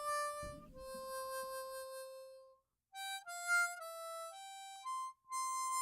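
Background music: a harmonica playing a slow tune of long held notes, stepping from note to note, with a short break about two and a half seconds in.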